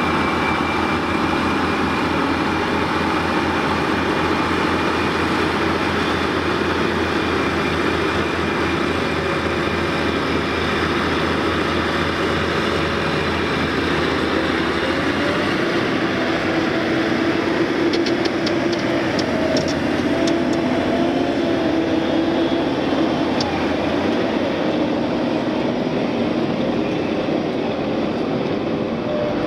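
Diesel engines of a CAT 637 tandem-powered wheel tractor-scraper working under load, a steady heavy drone whose pitch shifts about halfway through. A brief run of faint clicks or rattles follows a little after the middle.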